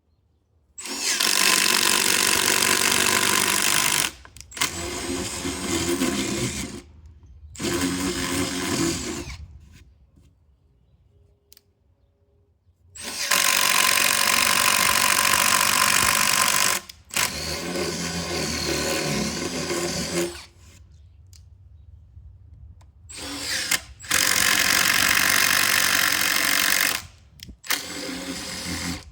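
Power tool, likely a drill, running in several runs of a few seconds each with short pauses between, and a longer pause about halfway through.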